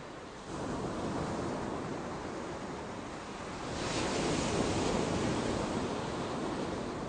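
Steady rushing noise, like surf or wind, that swells about four seconds in.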